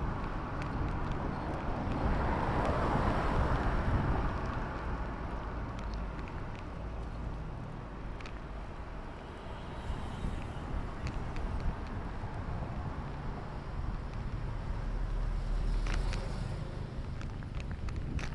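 Street noise heard from a moving bicycle: steady tyre and road rumble with traffic around, and a louder swell of noise about three seconds in.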